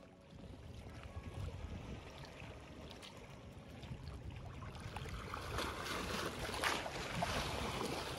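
Small sea waves washing and splashing over seaweed-covered shoreline rocks, the splashing getting louder about halfway through.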